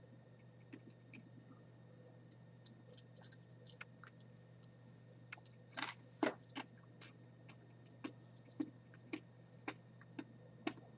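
Faint crunchy chewing of a boiled, salt-dried Chinese yellow scorpion's tail: scattered short crisp crunches, the loudest about six seconds in. Pet crickets chirp faintly in the background.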